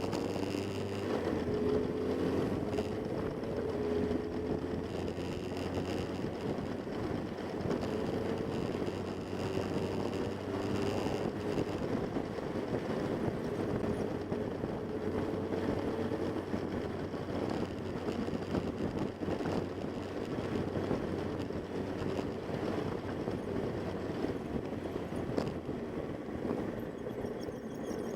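Motorcycle engine running under way, its pitch wavering slightly, over a steady rushing road and wind noise.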